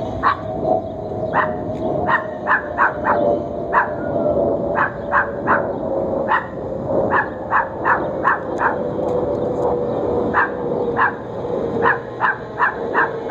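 A dog barking over and over in short, sharp barks, in irregular runs of two to four, over a steady engine drone whose pitch sinks slowly.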